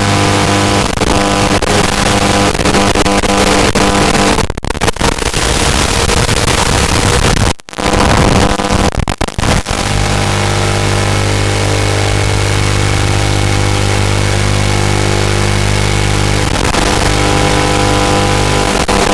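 Steady electrical buzz with hiss, fixed in pitch, from the analog video receiver's audio channel recorded by the FPV goggles' DVR: the drone sends no sound, so the channel carries only hum and noise. It breaks up briefly a few times near the middle.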